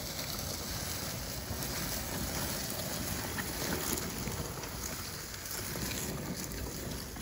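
Stump grinder pushed by hand on its wheels over dry grass and leaves, with steady rustling and crunching. Wind noise on the microphone runs underneath.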